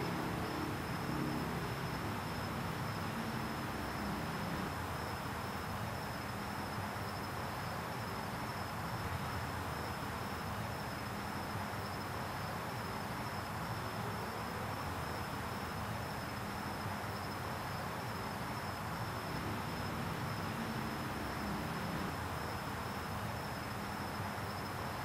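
Steady insect chorus: one unbroken high-pitched trill, over a faint low rumble.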